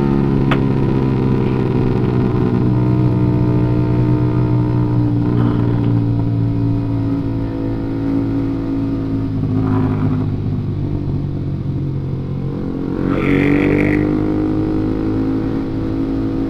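Road vehicle engine running. Its pitch falls over the first few seconds, holds steady, then rises again about thirteen seconds in.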